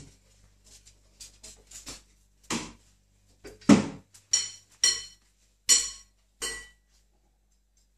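A cat batting a small ball about a tiled floor: a run of sharp knocks and clinks, the loudest from about three and a half seconds in, several with a short metallic ring.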